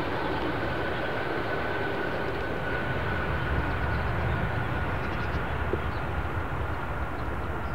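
Aircraft jet engines running as the aircraft passes: a steady rumble with a thin, high whine that sinks slightly in pitch.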